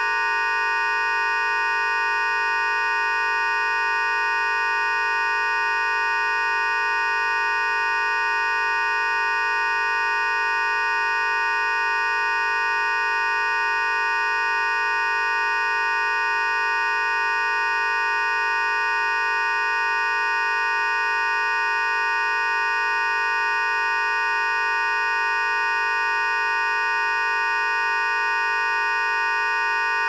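Synthesized sci-fi particle beam sound effect: a steady electronic hum of several high tones held together over a lower tone, with no change in pitch or loudness.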